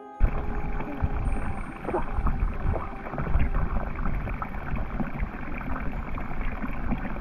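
A thin stream of water pouring from a metal spout into a full trough, splashing steadily; it starts suddenly just after the start.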